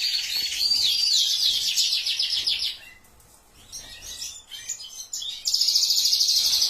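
Small finches, siskins or goldfinches, singing in fast high twittering trills. The song breaks off about three seconds in, a few short chirps follow, and a long trill starts up again near the end.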